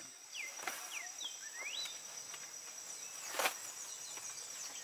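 Steady high-pitched insect chorus, with a few short rising and falling whistles in the first two seconds and a single brief knock about three and a half seconds in.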